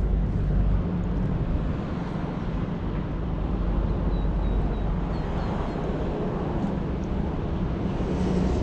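Steady outdoor background noise with a low rumble, and a few faint high chirps about halfway through.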